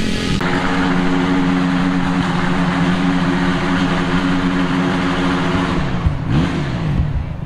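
Dirt bike doing a burnout: the engine is held at high, steady revs with the rear wheel spinning. About six seconds in the revs drop and are blipped up and down.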